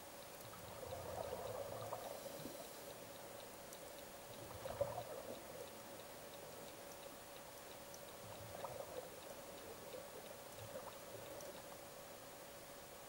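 Faint bubbling and gurgling water in short bursts, roughly one every three to four seconds, the loudest about five seconds in, over a faint steady hum.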